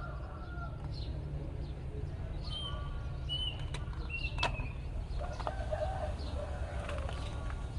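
Birds chirping and clucking in short calls over a steady low rumble, with a few sharp clicks.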